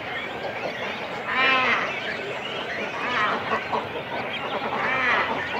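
Cormorant nesting colony heard close up: a continuous din of overlapping calls from chicks and adults on the nest. Two loud, pitched calls about half a second long stand out, one about a second and a half in and one near the end.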